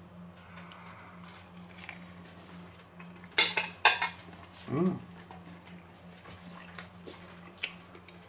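Cutlery clinking against a plate: two sharp clinks about half a second apart a few seconds in, then a few faint ticks near the end. A brief hum of voice comes about a second after the clinks.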